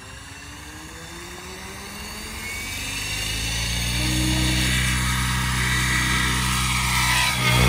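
XL Power Specter 700 electric RC helicopter spooling up on the ground. The Egodrift brushless motor's whine rises in pitch as the main rotor speeds up, growing steadily louder and levelling off about four seconds in.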